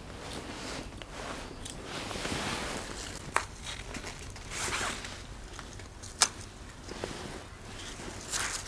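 Leaves rustling and crackling as a bolting pak choi plant is pulled from the soil and handled, with two sharp scissor snips, about 3 s and 6 s in.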